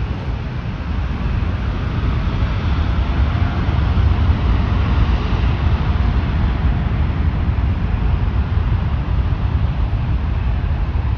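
Boeing 787-9's jet engines at takeoff power: a steady deep rumble with a hiss over it, growing a little louder about three seconds in and holding.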